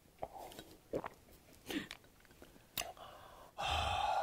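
Faint, spaced-out gulps and mouth sounds of a person drinking sikhye (a sweet rice drink) from a glass mug, then a louder sound lasting about half a second near the end.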